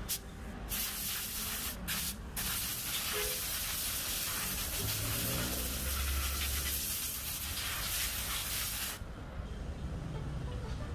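A loud, steady hiss that starts under a second in, breaks twice briefly around two seconds in, and stops abruptly about nine seconds in, over a low background rumble.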